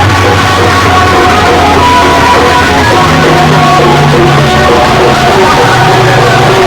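Music blasting at near full volume through big DJ speaker boxes, with a heavy bass line that steps up in pitch about three seconds in.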